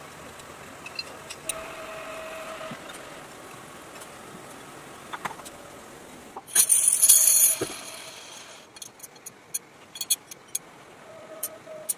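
Steel sprockets clinking and jangling against one another as they are handled and stacked, with a loud metallic clatter about six and a half seconds in and a quick run of sharp clinks near the end.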